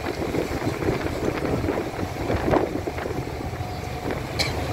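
Steady rumble of a boat's engine under wind buffeting the microphone, with a brief higher-pitched blip near the end.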